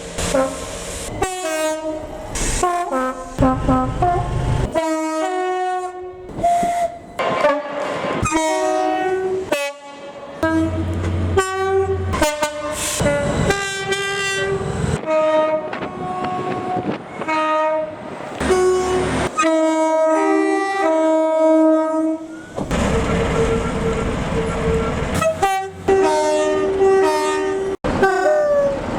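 Locomotive horns sounded as a rapid run of many short notes at different pitches, played as a tune, with the rumble of the running train showing through for a couple of seconds near the end.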